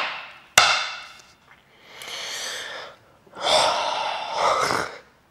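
A man's breathing close to the microphone: a sharp puff near the start that fades away, then two longer breathy exhalations without words.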